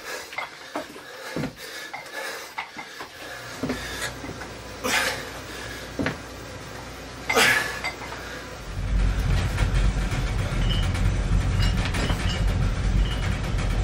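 Iron dumbbells clinking and knocking during lunges, with two louder clanks about 5 and 7.5 seconds in as they are set down. A loud low rumble comes in about 9 seconds in and carries on.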